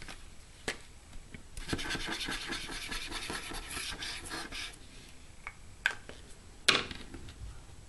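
Zig glue pen tip scratching and rubbing across a small piece of paper for about three seconds, followed by a few sharp clicks, the loudest near the end.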